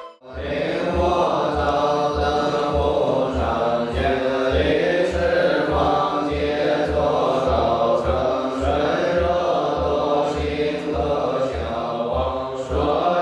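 Buddhist monks chanting sutras in unison, a group chant moving in a repeating melodic line over a low steady beat about twice a second.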